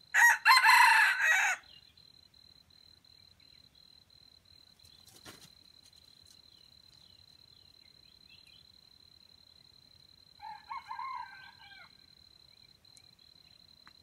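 Red junglefowl roosters crowing: a loud crow about a second and a half long at the very start, then a fainter, more distant crow about ten seconds in.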